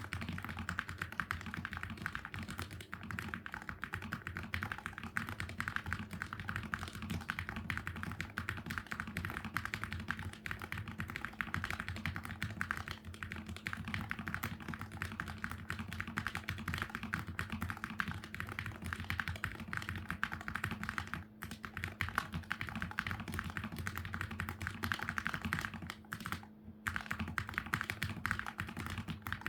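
Typing on a Keychron K3 HE ultra-slim keyboard with magnetic switches, resting on a desk mat: fast, continuous key clicks with two brief pauses, about two-thirds of the way in and near the end.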